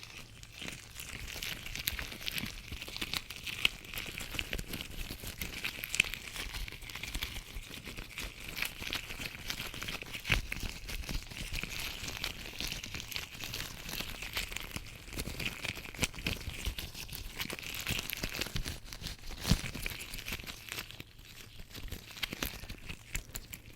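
Latex gloves rubbing and crinkling close to the microphone: a continuous dense crackle of small clicks and rustles.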